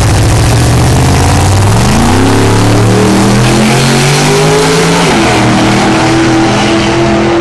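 Drag racing car's engine at full throttle on a launch, pitch climbing hard through the first couple of seconds and holding high. About five seconds in, the pitch drops sharply and settles lower and steadier.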